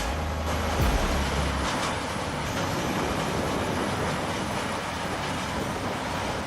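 Large industrial wood chipper running under load, chipping wood with a steady, dense grinding noise. There are heavy low thuds in the first second or two.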